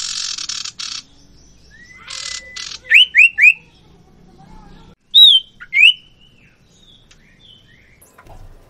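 A pair of sirtu birds, a kind of iora, calling. Harsh raspy chatter comes at the start and again about two seconds in, then three quick loud whistled notes around three seconds, and two more loud whistled notes just after five seconds.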